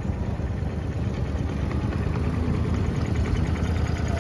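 Ride-on miniature train running along its track: a steady low rumble of the cars and wheels, heard from aboard.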